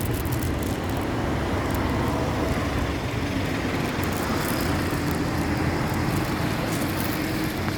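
Steady road traffic noise, a continuous rumble of passing motor vehicles.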